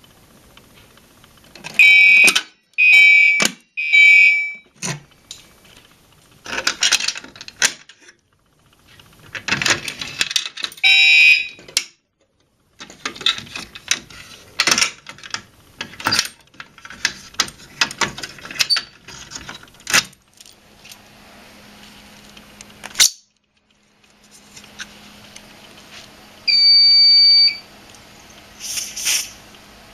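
Gentex fire alarm horns sounding short buzzy blasts during an audible walk test: three pulses about a second apart near the start, another blast around eleven seconds in, and a steadier tone for about a second near the end. Irregular knocks and clicks come in between.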